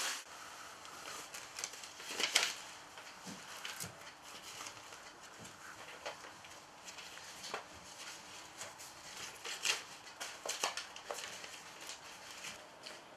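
Faint, intermittent rustling and crinkling of joss paper being handled, with a few sharper crackles now and then.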